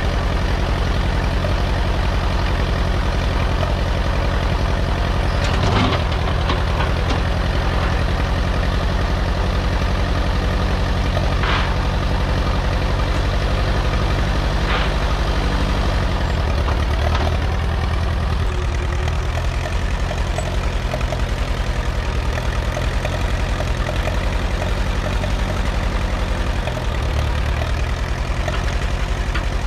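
Allis-Chalmers WD tractor engine running, rough and poorly: the owner wants the engine replaced. A few sharp metal clanks come through it in the first half, and the engine note shifts a little past halfway.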